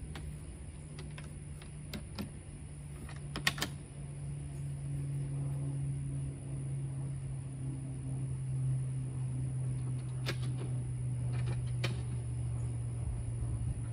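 Wooden well-house doors swung shut and latched, giving a few sharp knocks and clicks, the loudest about three and a half seconds in and two more later on. A steady low hum runs underneath.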